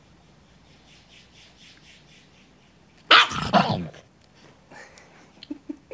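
Small dog giving one loud bark about three seconds in, lasting just under a second.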